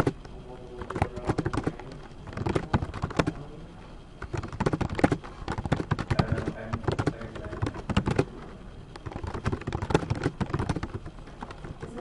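Typing on a computer keyboard: quick runs of key clicks broken by short pauses.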